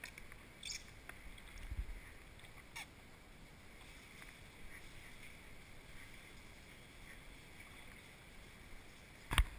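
Faint handling sounds of paint protection film being worked onto a car's side mirror: a few light squeaks and rubs from the squeegee and microfibre towel, then a sharp knock near the end.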